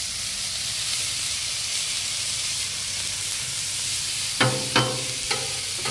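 Diced onions and mushrooms sizzling in oil and butter on a Blackstone steel flat-top griddle, a steady hiss. Over the last second and a half a metal spatula clacks and scrapes against the griddle top a few times as the vegetables are stirred.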